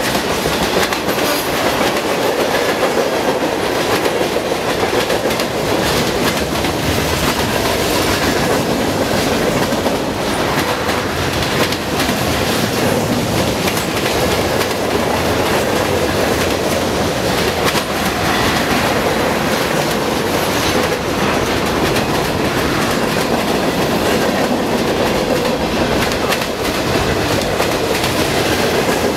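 Freight cars of a Union Pacific train rolling past close by: a steady roar of steel wheels on rail with rapid clickety-clack over the rail joints.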